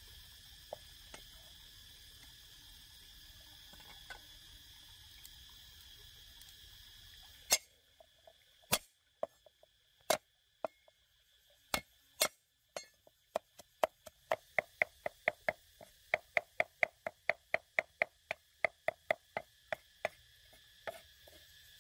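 Large knife chopping garlic on a round wooden chopping block: a few separate heavy knocks, then rapid steady chopping at about four strokes a second that stops shortly before the end. Before the chopping, a steady high drone of insects.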